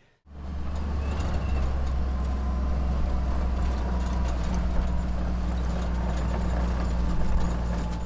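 Utility vehicle's engine and drivetrain running as it drives over a rough grass track, heard from inside the open cab: a steady low drone with road noise, starting abruptly.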